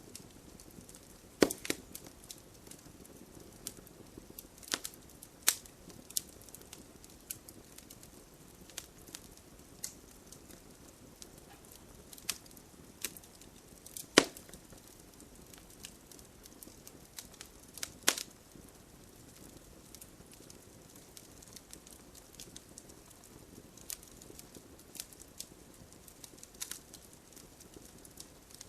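Campfire crackling: irregular sharp pops and snaps of burning wood over a soft steady hiss, with a few louder pops, the loudest about 14 seconds in.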